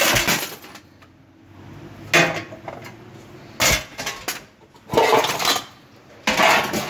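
Brass plumbing fittings and chrome fixtures clattering and clinking against each other in a cardboard box as they are rummaged through by hand, in about six short bursts a second or so apart.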